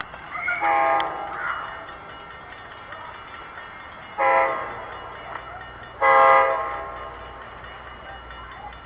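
Air horn of an NJ Transit GP40PH diesel locomotive sounding three blasts of about half a second each as the train approaches, about one, four and six seconds in, over a faint low rumble.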